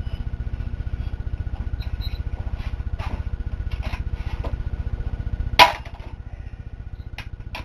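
Small metal clicks of bolts being worked loose and handled on a Ford C4 automatic transmission case, over a steady pulsing low machine hum. A single sharp metal clank about five and a half seconds in is the loudest sound, and the hum drops after it.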